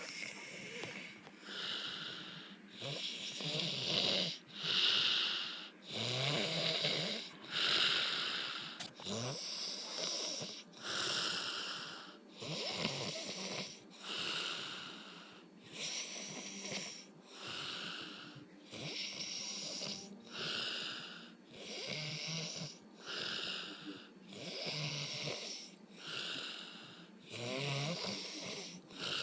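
A pig snoring, with one rasping snore about every second and a half in a steady rhythm.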